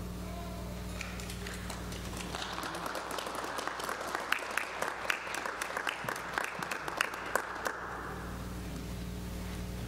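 Congregation applauding, rising about two seconds in and dying away near the end, over a low steady hum.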